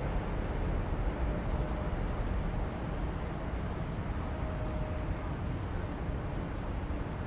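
Wind buffeting the microphone in a steady low rumble, with the faint whine of a radio-controlled model airplane's motor rising and fading as it passes overhead.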